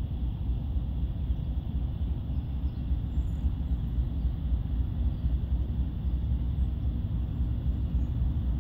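Low rumble of a distant diesel freight train approaching down the line, growing slightly louder toward the end.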